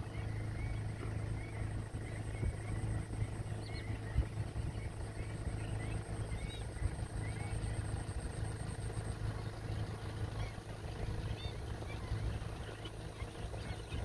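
A large mixed flock of wading birds giving many short, overlapping chirping calls, over a steady low hum. A thin high whine runs until about nine seconds in.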